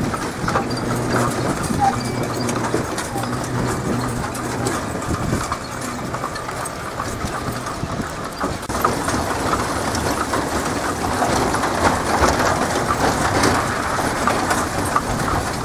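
Horse-drawn buggy on the move: hooves clip-clopping and the cart's wheels and frame rattling steadily over the road. A steady low hum runs under it through the first half.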